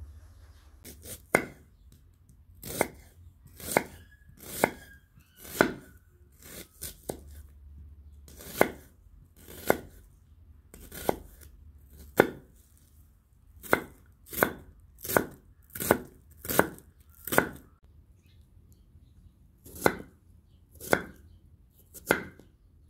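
Kitchen knife slicing onion and potato on a wooden cutting board: slow single cuts about one a second, each ending in a sharp knock of the blade on the board, with a couple of short pauses.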